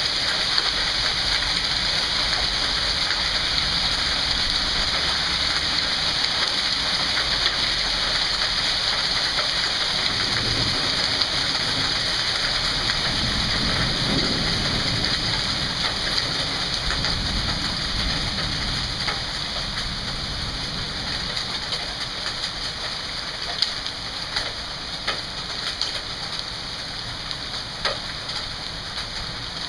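Heavy rain with hail pouring down: a steady, dense hiss of drops and stones on the lawn, pavement and leaves. A low rumble swells around the middle, the downpour eases off in the second half, and a few sharp ticks stand out near the end.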